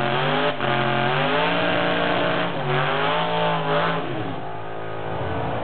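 Supercharged drag-racing van engine revving hard during a burnout, its rear tyres spinning and smoking. The revs climb and fall back twice, then the sound turns rougher and noisier near the end.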